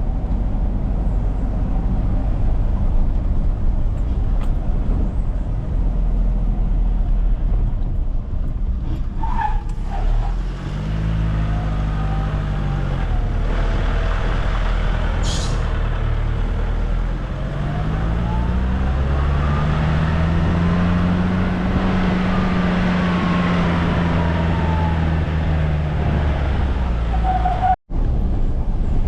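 A car's engine and road noise while driving. The engine note rises and falls several times in the second half as the vehicle speeds up and slows. There is a brief high squeak about halfway through, and the sound drops out for an instant near the end.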